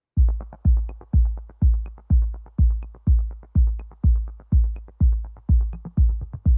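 Electronic background music: a steady, deep kick-drum beat about twice a second, with light ticks between the beats.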